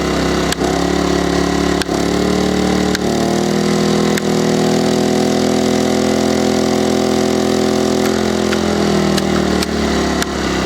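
Small 850-watt inverter generator's petrol engine running, speeding up in steps as filament-bulb load is switched in with a click of a switch at each step. It holds at the higher speed, then slows back down near the end as the load is switched off with a few more clicks.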